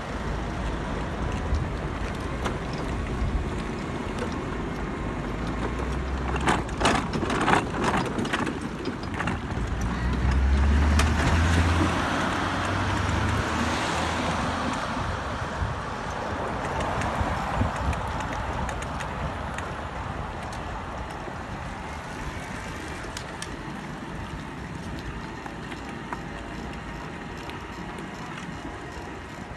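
Street and traffic noise while pedal go-karts and a bike trailer roll along an asphalt road, with a few sharp clicks about seven seconds in. It grows louder for a few seconds with a low rumble around eleven seconds in, then eases off.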